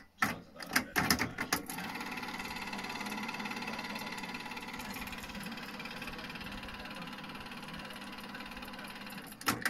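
Sony TC-KE300 cassette deck: several clicks of the transport buttons and mechanism, then the tape fast-rewinding with a steady whirr of motor and reels for about seven seconds, ending in a clack as the transport stops near the end.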